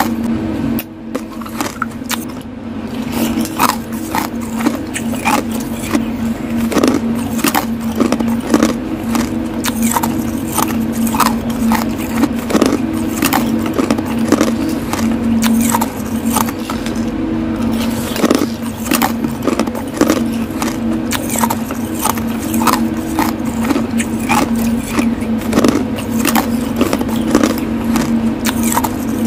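Metal spoon scraping and clinking through crushed ice in a ceramic bowl, with many quick sharp clicks. A steady low hum runs underneath.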